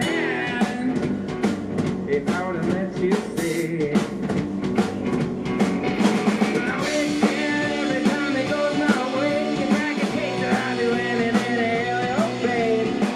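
Rock band playing: drum kit, guitar and a singing voice, with the sound getting fuller and brighter about halfway through.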